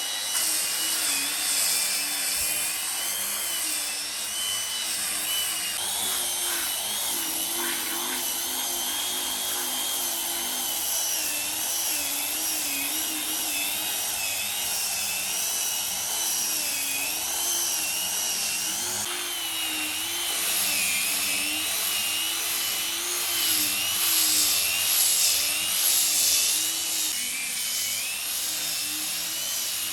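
A handheld electric power tool running continuously on wood, its motor pitch wavering up and down as it is pressed into the work. The grinding hiss gets louder for a few seconds near the end.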